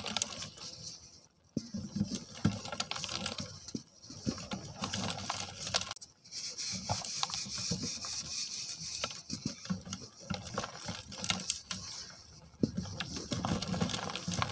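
Lumps of pure dry cement crumbling between the fingers, the grains and powder falling onto a plastic strainer grate as a dense crackle of small ticks, broken by a few brief pauses.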